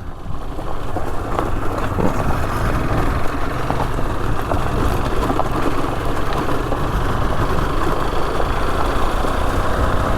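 Rieju Adventura 125 learner motorcycle running steadily while being ridden, heard from a microphone inside the rider's helmet, so the small engine is mixed into a dense rumble of wind noise.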